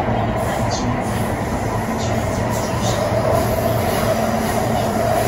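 Taipei Metro C301 train heard from inside the car while running: a steady rumble of wheels and running gear, with a low motor hum under it and faint wheel squeal.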